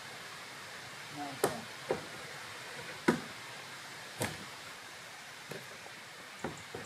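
Sharp wooden knocks, about seven at irregular intervals and loudest about one and a half and three seconds in, from work on the timber poles of a roundhouse roof frame. A steady hiss runs underneath.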